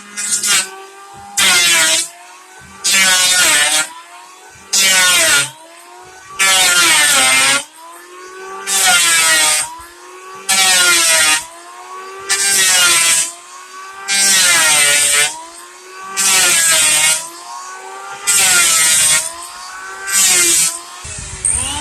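Electric hand planer running, its motor whine dipping in pitch under load with a loud hiss of shaving about every two seconds as the blades cut into wood, and climbing back to speed between passes.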